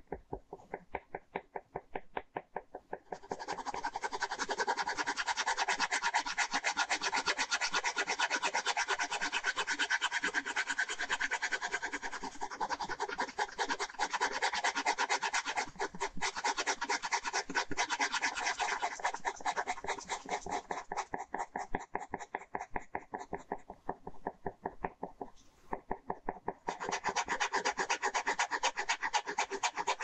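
Ballpoint pen hatching on paper: rapid, repeated back-and-forth scratching strokes. They are fainter for the first few seconds, thin out about two-thirds of the way through, and pick up again near the end.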